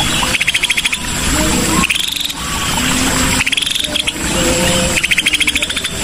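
Recorded song of the cucak sisik (scaly-breasted bulbul): rapid, stuttering chattered phrases repeating about every second and a half, mixed with short whistled notes. It is played as a lure track to set other caged birds singing. A thin steady high tone runs behind it.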